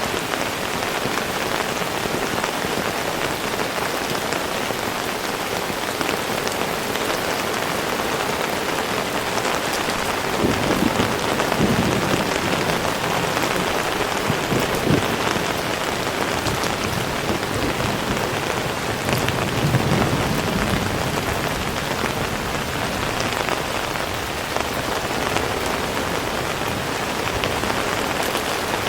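Heavy rain falling steadily in a dense hiss, with two low rumbles, one about ten seconds in and one about twenty seconds in.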